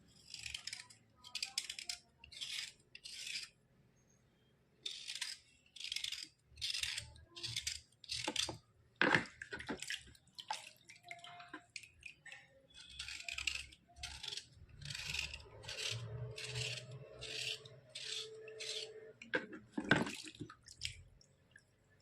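Repeated short scraping strokes on a board caked with white slate pencil, about one to two a second, in runs broken by two short pauses. There are a couple of sharper knocks, about nine seconds in and near the end.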